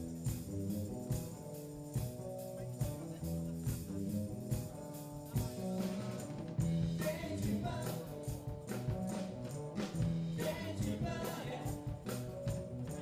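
A live band playing a song, with a pitched bass line and regular percussion hits, which get busier after about seven seconds.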